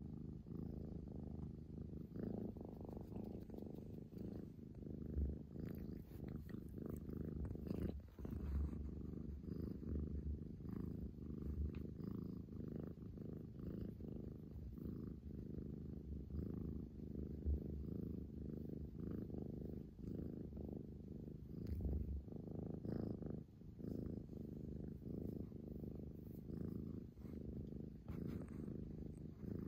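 Scottish Fold cat purring steadily, a low rhythmic rumble that carries on throughout.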